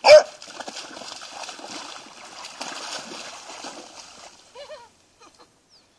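Several dogs leaping and splashing through a shallow marsh pool, the water churning for about four seconds, with a loud sharp burst right at the start.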